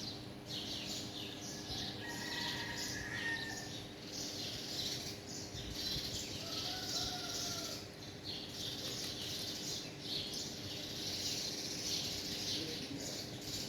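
Birds chirping in a continuous, pulsing chorus of high notes, with a couple of longer whistled notes about two and six seconds in.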